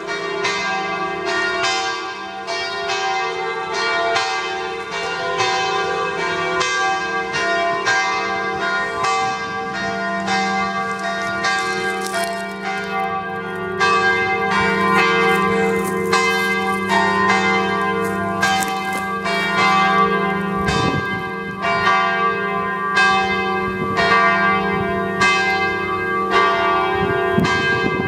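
Church bells ringing: a steady run of strikes about two a second, each with a long ringing hum that carries on under the next.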